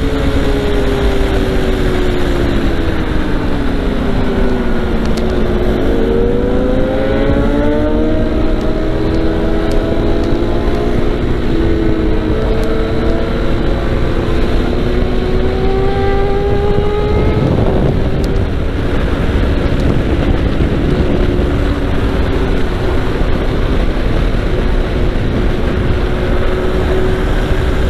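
KTM RC 390's single-cylinder engine running hard at highway speed, its pitch falling over the first few seconds, then climbing as the bike accelerates, with another shift about two-thirds of the way through. Wind rushes over the microphone throughout.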